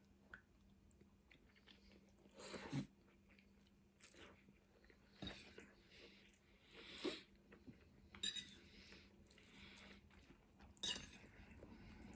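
A person chewing food close to the microphone: mostly quiet, with a handful of louder, brief mouth sounds spread a second or two apart.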